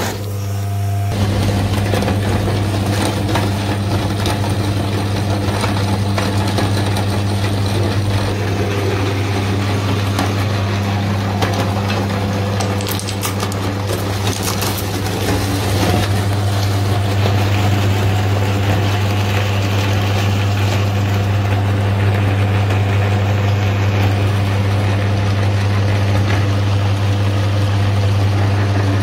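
Electric meat grinder running with a steady low motor hum while its auger crushes hard lollipops, with continuous crunching and crackling of breaking candy.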